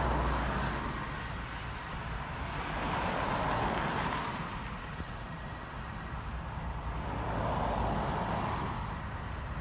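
Cars driving past close by one after another, their tyre and road noise swelling and fading three times, about four seconds apart, over a steady low rumble.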